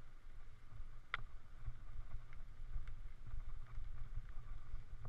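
Wind and riding rumble buffeting the microphone of a helmet-mounted camera on a mountain bike riding a dirt forest trail, with small rattles and a sharp click about a second in.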